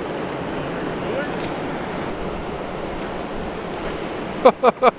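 Steady rushing of the fast-flowing Thompson River. Near the end, a man's voice breaks in with a quick run of short bursts.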